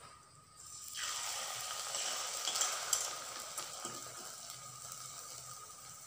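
Batter-coated achappam (rose cookie) mould lowered into hot coconut oil in a wok. The oil starts sizzling sharply about a second in, then slowly dies down as the cookie fries.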